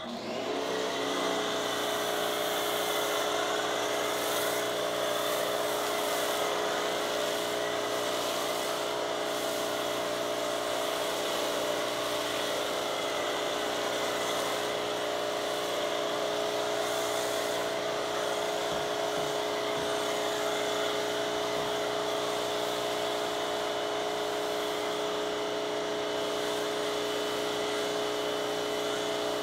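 Pressure washer running steadily while its foam cannon sprays soap foam onto a car: a constant motor hum under a steady spray hiss.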